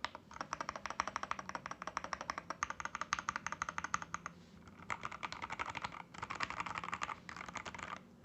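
Typing on a mechanical keyboard with AKKO x TTC Demon linear switches: rapid, even keystroke clacks, turning into a denser blur of keystrokes over the last three seconds and stopping just before the end.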